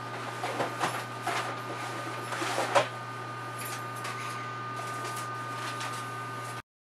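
Rustling and knocking of boxes and a fabric shopping bag being handled as supplies are packed, several sharp handling noises in the first few seconds, over a steady electrical hum. The sound cuts off abruptly near the end.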